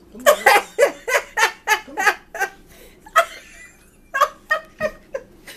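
A person laughing in a quick run of short 'ha' pulses, about three or four a second. The laughter breaks off for about a second near the middle, then starts again.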